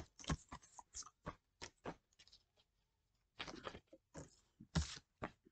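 Tarot cards being handled and shuffled: a scatter of short, faint clicks and rustles, with a denser run of rustling about three and a half seconds in and a sharper snap near the end.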